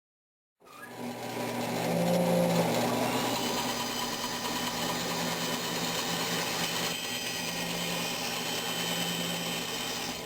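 Electric power tool motor running steadily with a constant hum and hiss, starting suddenly about half a second in.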